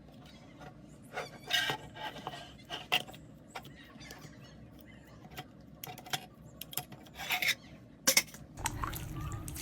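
Slime being worked by hand, making irregular crackling clicks and short rasping crunches. A steadier low hiss comes in near the end.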